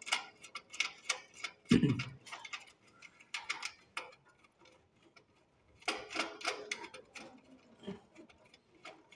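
Irregular clicks and small taps of a screwdriver and the plastic-and-metal ignition electrodes as a screw is undone and the electrodes are pulled free of a gas geyser's burner, with one dull knock about two seconds in.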